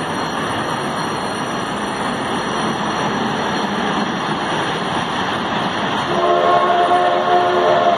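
Unseen steam locomotive approaching: a steady, dense rush of chuffing echoing off the street's walls. About six seconds in, its chord whistle sounds, several notes at once, held for about two seconds.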